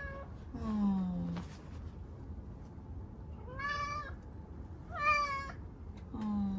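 Domestic cat meowing loudly and repeatedly, about four calls, each under a second long, some sliding down in pitch. These are agitated, insistent cries at an unfamiliar patch of light that the cat is fixated on and wants to reach.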